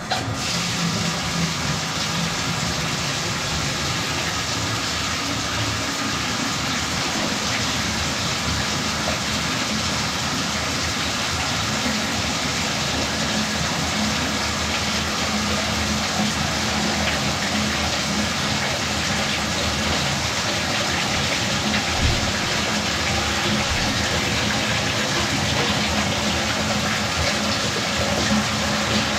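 Bathtub spout running full into the tub, water pouring and splashing onto the tub floor as it rinses debris toward the drain. It comes on suddenly at the start and then runs steadily.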